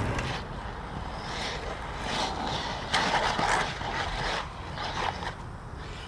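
Inline skate wheels rolling on street pavement, a hiss that swells and fades with each stride, with a sharp click about three seconds in.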